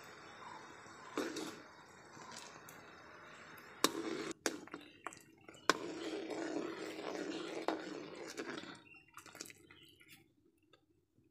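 Water poured into hot caramelized sugar in a metal wok, hissing and sizzling as it steams, with a few sharp clicks. It is strongest through the middle and dies away near the end.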